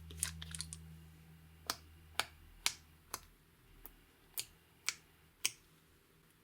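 Clear slime being worked by hand, giving a quick cluster of small crackles and then a series of sharp popping clicks about every half second, as air pockets in the slime burst.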